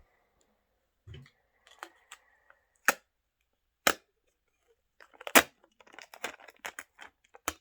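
Small plastic toy pieces being handled and fitted together: several sharp clicks and taps with light rustling between them.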